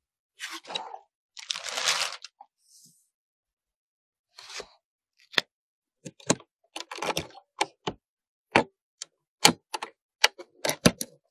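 Computer parts being unpacked and handled. In the first two seconds there are two bursts of rustling and sliding from the cardboard box and packaging. From about five seconds in comes a run of sharp plastic clicks and taps as a CPU is lifted from its clear plastic clamshell tray and the motherboard's CPU socket retention lever is worked.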